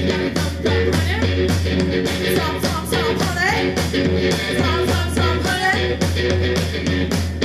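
Live garage punk band playing: distorted electric guitar over a steady, driving drumbeat, with a few pitch bends partway through.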